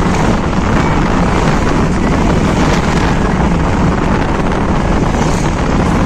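Wind buffeting the microphone at the open side window of a moving car, over steady road and engine noise. Loud and unbroken.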